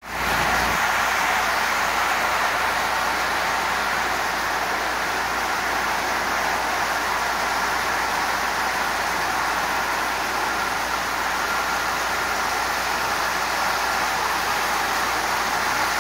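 Marx tinplate O-gauge toy train running slowly at a constant speed on three-rail track: a steady, even running noise from its electric motor and wheels on the metal rails.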